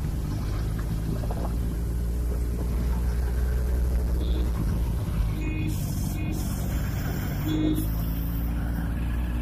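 Motorcycle engines running steadily on the move, a low even drone with road noise.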